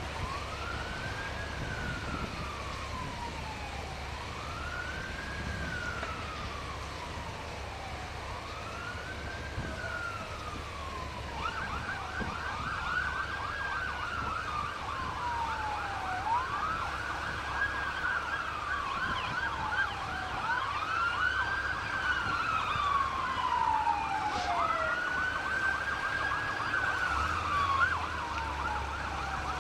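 Emergency vehicle sirens. One wails, rising quickly and falling slowly about every four seconds. From about eleven seconds in, a second siren joins it in a fast yelp, over a low steady hum.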